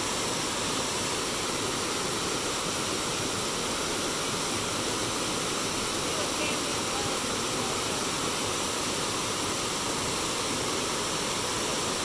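River water running steadily, a continuous even rush of flowing water.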